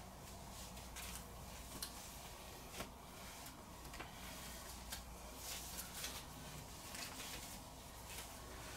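Faint rustling of clothing fabric as a top is pulled on, with a few soft clicks and taps.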